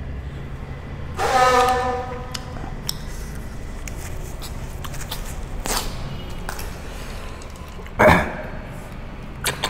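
Cooked snails being sucked noisily out of their shells by people eating, in short slurping bursts, over a low steady hum. About a second in, a short steady honk-like tone sounds briefly and is louder than the rest.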